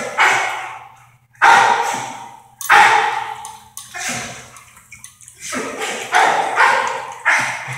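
A dog barking, a string of loud barks about a second or so apart, each one ringing on in the hard-walled kennel.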